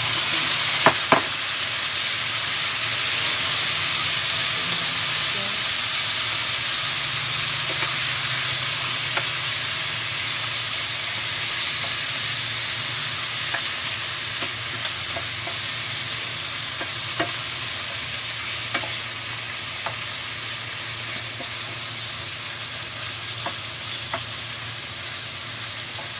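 Chicken leg pieces hitting hot oil in a frying pan, setting off loud, steady sizzling that slowly eases off. A couple of knocks about a second in, then scattered light taps of a wooden spatula stirring the chicken in the pan.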